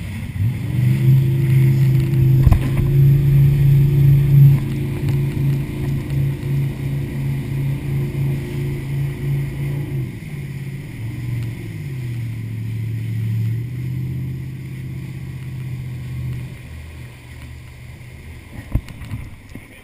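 Motorboat engine running steadily at speed, then throttled back about ten seconds in, its pitch falling as the boat slows and the sound fading. The level pulses about twice a second while at speed, and there are two sharp knocks, one early and one near the end.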